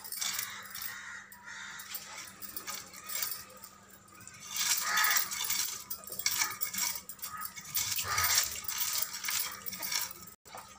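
Fish scales being scraped off by drawing the fish against a boti, the upright curved floor blade: a run of quick rasping, clicking scrapes, heaviest about five seconds in and again around eight seconds.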